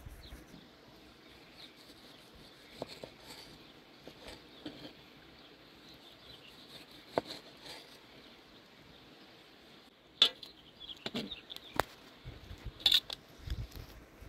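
Scattered sharp clicks and knocks, a few spread out and then several close together in the last few seconds, over a faint steady outdoor hiss.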